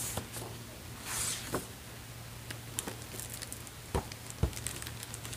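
Paper pages of a hardcover picture book being turned, with two soft swishes, then the book being handled and flipped closed: small ticks and two soft thumps about four seconds in.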